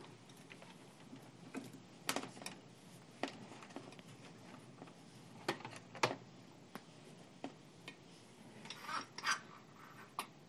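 Handling noise on an electrical test bench: a scattered series of light clicks, taps and rubs as gloved hands move test leads and touch the meters and a control knob, with a small cluster of clicks near the end.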